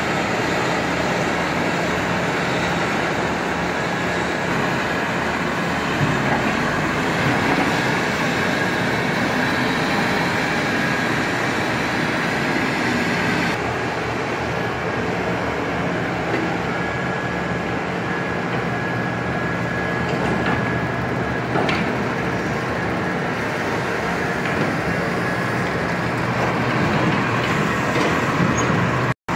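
Heavy diesel machinery running steadily: a terminal tractor and a log-handling excavator with a grapple working, with a low engine hum under a dense mechanical noise. The tone shifts about halfway through.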